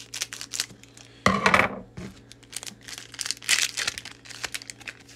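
Foil wrapper of a Japanese Pokémon booster pack crinkling as it is cut open with scissors and handled, in many short crackles, with one louder burst of crinkling about a second in.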